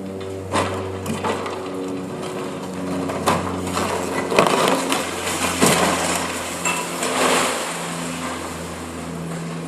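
Demolition excavator's hydraulic cutter crushing concrete: a run of irregular cracks and crunches, loudest about four to six seconds in, over the steady low drone of the machine.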